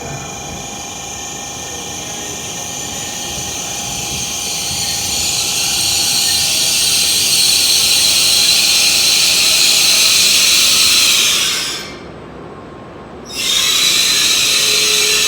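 A Shinkansen bullet train running through the station at speed: a rush of wind and wheel noise that builds over several seconds and then holds steady. It breaks off abruptly about twelve seconds in and comes back loud a second and a half later.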